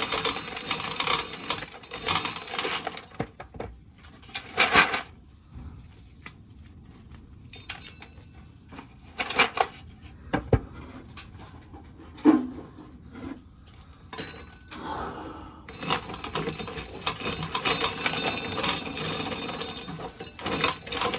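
Dried corn being shelled, hard kernels rattling and clattering as they fall, in two long busy stretches with scattered single clicks between them.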